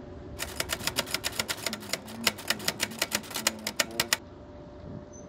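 Typewriter sound effect: a rapid run of key clicks lasting nearly four seconds, laid over a steady low rumble.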